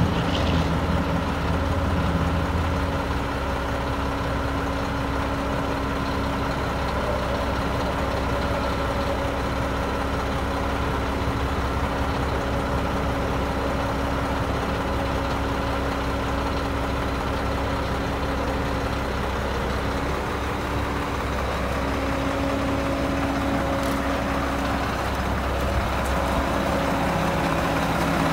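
Mack Granite truck's diesel engine running steadily, with a steady hum over it as the crane's hydraulic outriggers are drawn in. The hum dips briefly about two-thirds of the way through.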